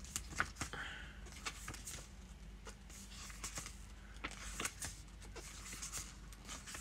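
Quiet paper rustling as the pages of a hardback art book are turned several at a time, with about a dozen light flaps and ticks scattered through.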